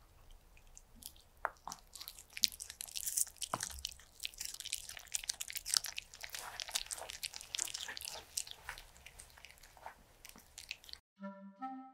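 White Pomeranian chewing dog-safe dakgalbi, chicken and vegetables in sauce, heard close up as a quick run of wet clicks, smacks and crunches. Near the end the chewing cuts off and a clarinet tune begins.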